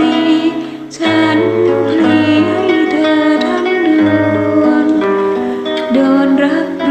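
Acoustic guitar played fingerstyle, accompanying a voice singing a slow melody with a wavering, vibrato-like pitch.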